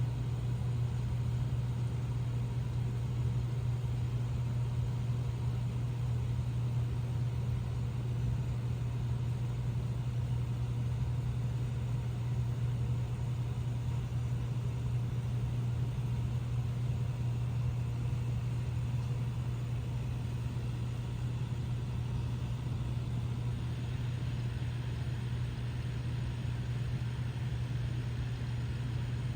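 A steady, unchanging low hum with no breaks or rhythm.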